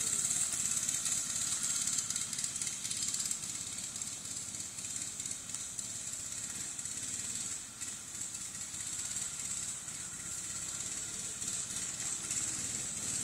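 Small go-kart engine running steadily as the kart is driven slowly around, under a steady high-pitched hiss.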